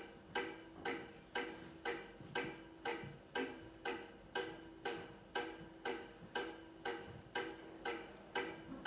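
Film soundtrack with an even clock-like ticking, about two ticks a second, each tick ringing briefly, over a steady held tone.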